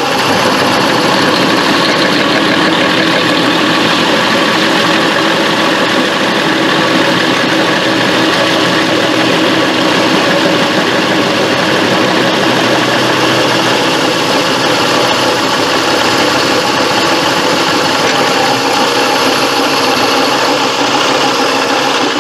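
1918 Willey friction-drive drill press running steadily under load: its electric motor and friction drive turning a twist drill just over 5/8 inch that bores through a steel piece and into the wooden board beneath.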